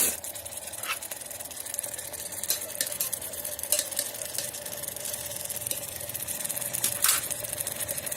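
Paneer and green pea curry bubbling in a pan on the stove: a steady crackling sizzle with a few sharper pops.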